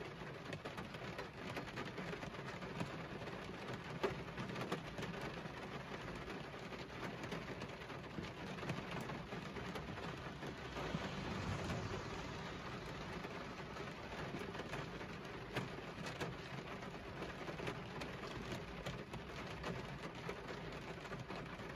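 Heavy rain falling on a car's side window, heard from inside the car: a steady hiss with many single drops tapping on the glass, swelling briefly about halfway through.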